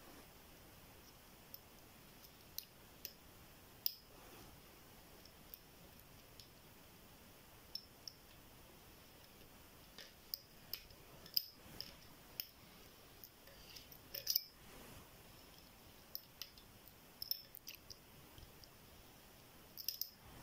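Lock pick and tension tool working the pins of a GLK ten-pin euro dimple cylinder lock: faint, irregular small metallic clicks as the pins are lifted and set, coming more often in the second half.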